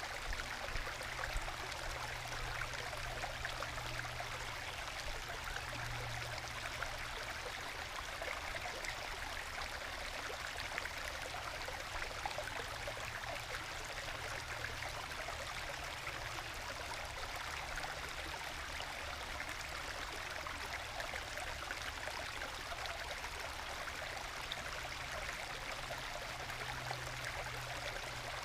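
Small forest stream babbling and gurgling gently over low bedrock waterfalls into small plunge pools, a steady, soft rush of water.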